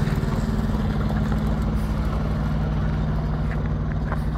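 Heavy truck diesel engine idling steadily, a low even rumble.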